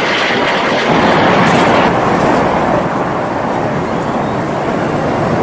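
Fighter jet flying past low, its engine noise a loud, continuous rumble and hiss.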